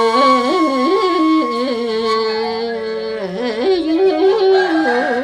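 Khmu bamboo flute (khui) playing a slow folk melody: long held notes joined by quick wavering turns and slides.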